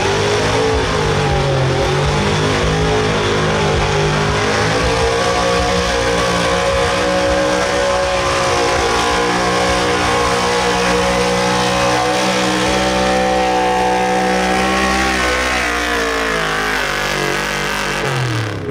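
Small-block gasoline V8 of a Chevrolet pulling pickup running at high revs under full load as it drags a weight-transfer sled. The pitch dips briefly at the start and holds steady through most of the pull. Near the end the revs fall away as the sled stops the truck.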